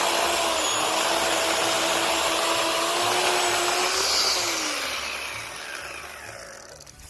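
Worx 14-inch corded electric chainsaw running at full speed with a steady whine. About four seconds in it is let off, and the motor and chain wind down, falling in pitch and fading out.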